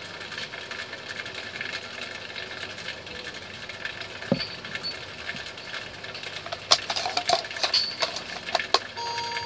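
Plastic calculator hard cover being handled and slid onto a Casio fx-570VN PLUS: a run of sharp plastic clicks and knocks in the second half, the loudest first, after a single knock about four seconds in. A steady background noise runs underneath.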